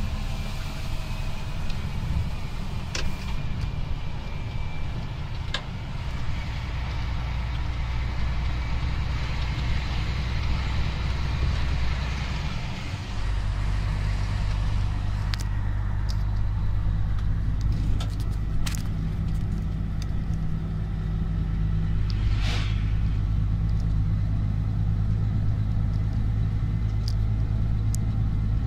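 Heavy truck's diesel engine running steadily, with a few scattered knocks and rattles. Its note changes about halfway through.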